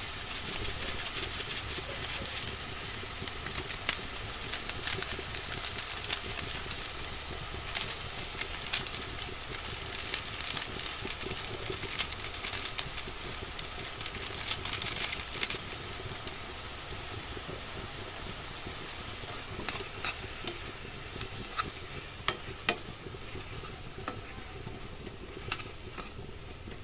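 Sliced tomatoes and onions sizzling in a frying pan while a spatula stirs them, with scattered scrapes and taps of the spatula against the pan.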